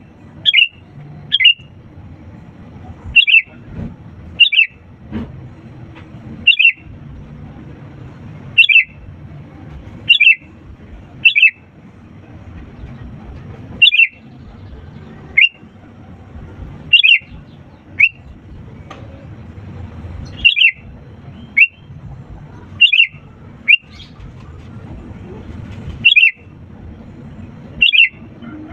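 Sooty-headed bulbul (kutilang) giving about twenty short, sharp calls, each a quick falling note. They repeat irregularly, roughly once a second, over a low steady background noise.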